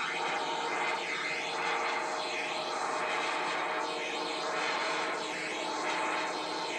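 County 1884 four-wheel-drive tractor's engine running hard under full load as it drags a tractor-pulling sled, a steady unbroken drone with slow swishing sweeps through the noise. Heard as playback of old video footage through a TV speaker.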